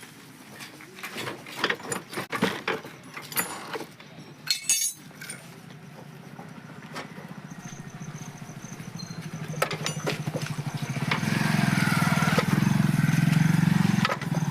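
Scattered metal clinks and knocks of hand work on the motorcycle's rear wheel assembly, then a motorcycle engine running with a steady pulsing beat that grows louder about ten seconds in.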